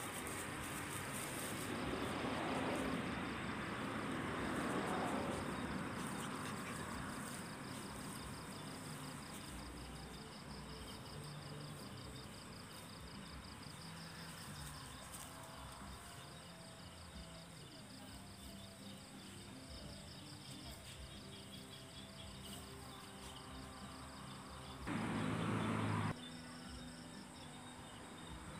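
Insects chirring steadily in a fast, even pulse, with rustling in the grass during the first several seconds as the dogs play. Near the end a sudden, steady one-second tone starts and stops abruptly, louder than anything else.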